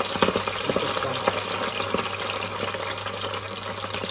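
Hot olive oil sizzling and crackling in a frying pan, kept spitting by water from freshly washed escarole though the burner is off. Crisp snaps of escarole leaves being torn by hand come mostly in the first second or so.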